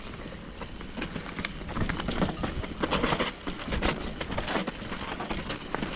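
Mountain bike riding down a dry dirt singletrack: tyres crunching over dirt and stones, with a steady noisy rush and frequent small clicks and knocks as the bike rattles over bumps.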